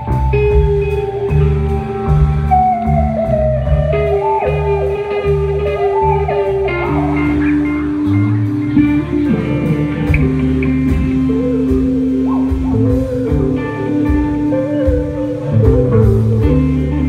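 Live rock band playing an instrumental passage: electric guitar holding long notes that bend and waver, over electric bass and a steady drum-kit beat.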